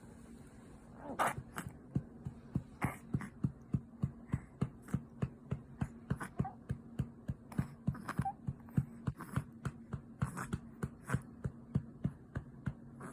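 A hand patting a 54-day-old baby's back to bring up a burp: a steady run of pats, about three a second, starting about a second in and stopping near the end, over a faint steady hum.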